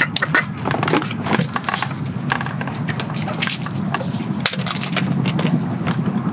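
Ice in a plastic cup crackling and popping in many small irregular clicks after lemon sour concentrate has been poured over it, with a knock near the start as the glass bottle is set down, over a steady low rumble.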